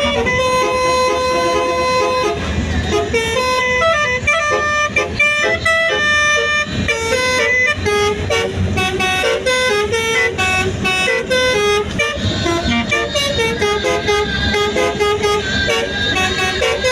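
Indonesian bus 'telolet' horn, a set of multi-tone horns, tooting a rapid melody of stepping notes without a break.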